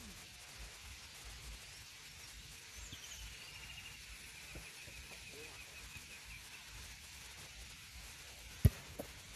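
Quiet outdoor ambience with a bird singing a long trill that slowly falls in pitch, starting about three seconds in. Near the end comes one sharp, loud thump of a football being kicked, followed by a smaller knock.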